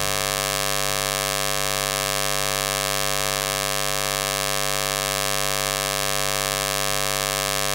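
Steady electrical buzz of mains hum with many overtones, holding at one level throughout. It is the heavy noise that spoils the second half of this recording.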